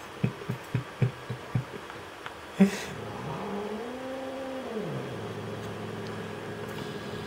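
Domestic cat growling low in a tense standoff with another cat: a quick series of short low grunts, then a long low yowl that rises, holds and falls before settling into a steady low growl. A single sharp click comes about two and a half seconds in.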